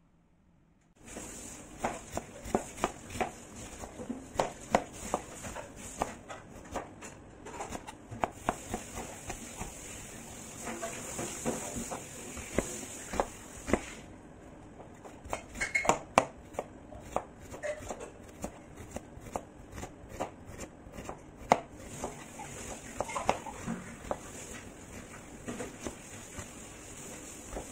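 Kitchen knife dicing an onion on a cutting board: a long run of quick, irregular knocks of the blade on the board, starting about a second in, over a steady high hiss.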